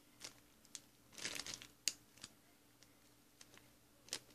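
Clear plastic bag crinkling faintly as it is handled, in short scattered crackles. There is a cluster of crackles about a second in and a sharper one near the end.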